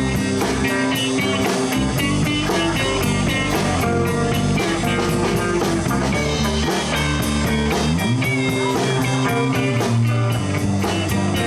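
Live blues band playing an instrumental break: electric guitar soloing over bass and a steady drum-kit beat.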